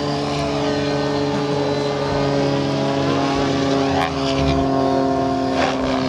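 Compass Chronos 700 radio-controlled model helicopter in flight: the rotor and motor give a steady whine of several tones held together, the pitch drifting slightly up and down.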